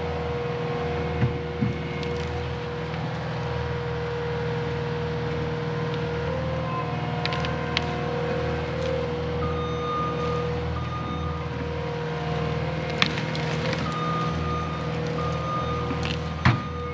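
Cat 259D compact track loader's diesel engine running steadily under work, with a steady whine over it and a few sharp knocks and snaps scattered through, the loudest two near the end.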